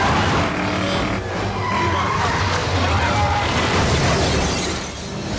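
Muscle car engine running hard while its tires skid and slide on a dusty dirt floor.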